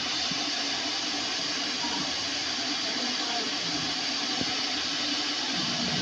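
Stainless steel electric kettle heating water, a steady hiss of steam as the water comes to the boil.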